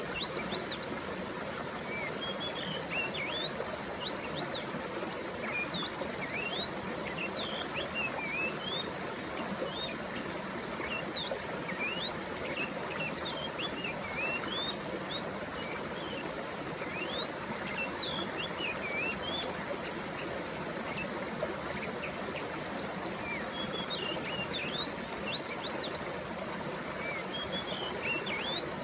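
Many birds chirping with short, quick rising and falling calls over the steady rush of flowing water.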